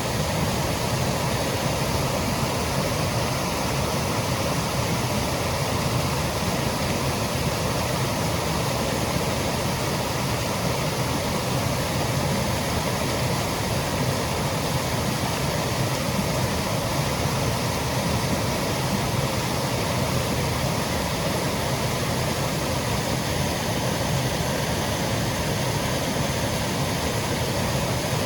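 Small woodland waterfall, water cascading and splashing in a steady, unbroken rush.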